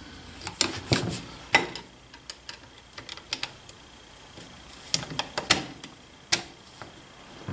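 Irregular light metallic clicks and taps of a Savage 64 .22 rifle's barrel being worked back into its receiver, pushed and wiggled to line up its grooves.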